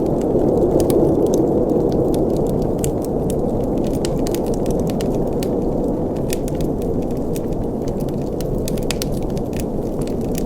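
Wood fire in a fireplace crackling: many small, irregular pops and snaps over a steady low rush of burning flames.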